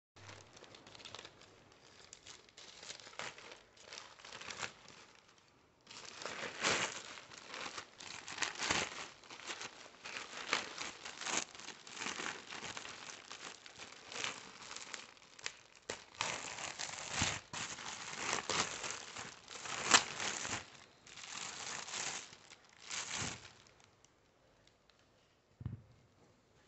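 Plastic courier mailer and plastic wrapping being torn open and crinkled by hand. The crinkling comes in an uneven run that grows louder about six seconds in and stops near the end.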